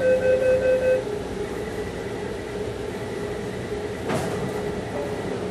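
A metro door-closing warning beeps rapidly for about the first second, then stops, over the steady hum of a train standing at the platform. About four seconds in there is a single thud, typical of the doors shutting.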